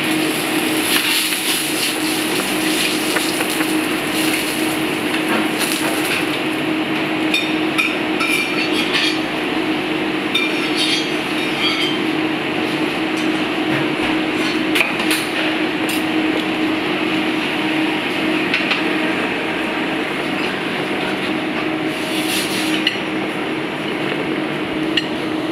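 Steady kitchen hum and hiss, with scattered light clinks of utensils against pans and plates.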